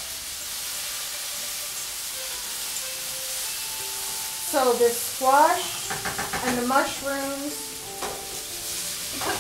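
Food sizzling and frying in a pan on a stovetop, a steady hiss. From about halfway, short pitched sounds that slide in pitch come in over it, louder than the sizzle.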